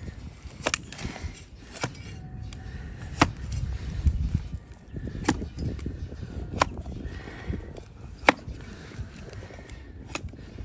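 A broad flat hoof-paring blade slicing down through a donkey's hoof on a wooden block, each cut ending in a sharp chop. There are about seven cuts, a second or two apart.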